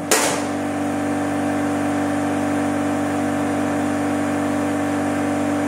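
A steady mechanical hum holds one constant pitch throughout, like an engine or motor running nearby. A single sharp crack at the very start fits a PCP air rifle shot.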